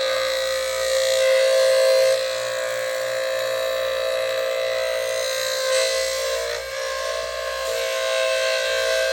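Foley 355 blade sharpener's grinding wheel running with a steady high motor whine and a hiss of grinding as it takes a pass along two planer blades. The sound steps down about two seconds in and dips briefly near the end.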